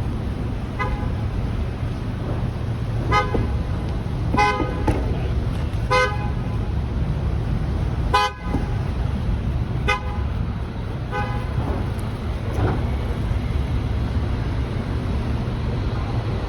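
Car horns honking in city traffic: about seven short toots, a second or two apart, over a steady low rumble of road noise.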